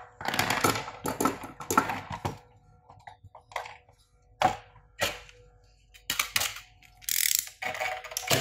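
Rapid clicks and rattles from an induction cooktop power board and its aluminium heatsink being handled on a workbench, with metal snips picked up and set down. The clicks come thick at first and then scattered, with a brief scraping hiss near the end, over a faint steady hum.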